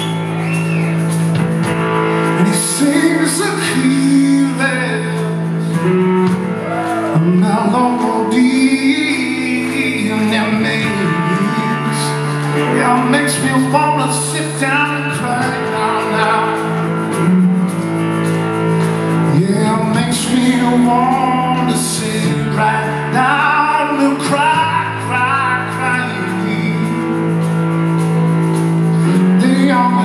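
Live rock band playing, with drums, electric guitar and bass under a male lead vocal.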